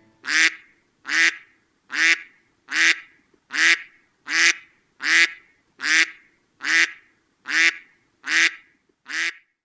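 A waterfowl call, like a duck's quack, repeated about a dozen times at an even beat of a little more than one call a second, stopping near the end.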